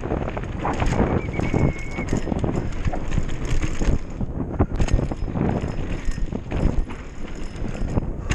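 Hardtail mountain bike rattling and knocking fast over a rough, bumpy dirt trail, with tyre noise on the dirt. A brief high squeal comes about a second in.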